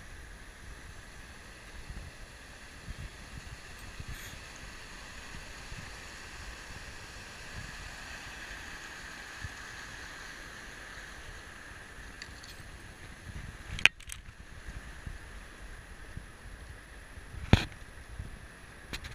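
Steady rush of river water, with wind buffeting the microphone and two sharp knocks a few seconds apart near the end.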